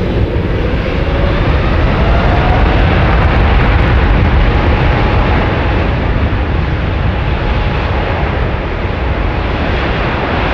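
Boeing 747-8F's four GEnx turbofans running loud as the jet rolls past at high power, a deep rumble with a whine that rises in pitch over the first few seconds.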